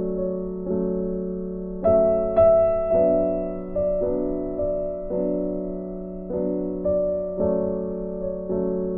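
Background piano music: slow chords struck about once a second, each one fading away.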